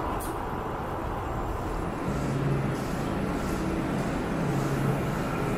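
Steady rumbling background noise of an underground transit station, with a low hum that comes in twice.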